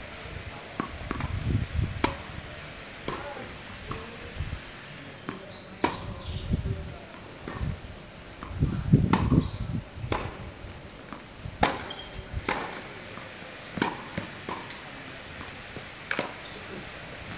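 Tennis ball struck by rackets and bouncing on a hard court during a doubles rally: about ten sharp pops, spaced irregularly one to two seconds apart.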